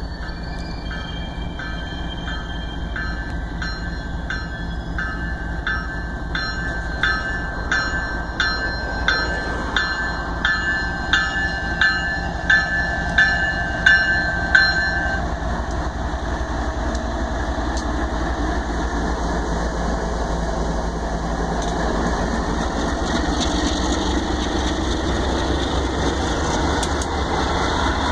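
Approaching BNSF freight train with the locomotive bell ringing, about three strikes every two seconds, getting louder and stopping about halfway through. After that the GE diesel locomotives' engines and wheels rumble past, louder as the units come alongside.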